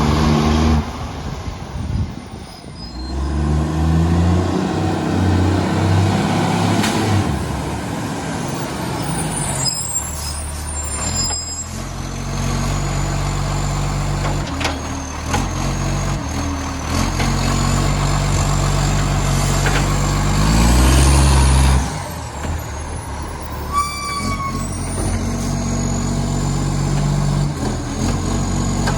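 Side-loader garbage truck's diesel engine idling and revving in steps, with a massive exhaust leak; the hardest rev, about three quarters through, is the loudest moment. Air brakes hiss, and there is a brief squeal near the end.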